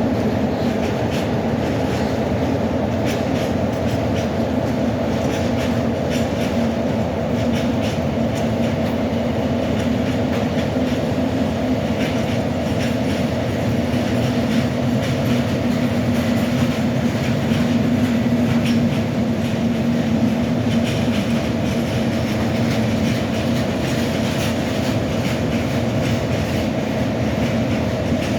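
Electric freight train of Eas open wagons running steadily: wheels clicking over the rails with a constant hum.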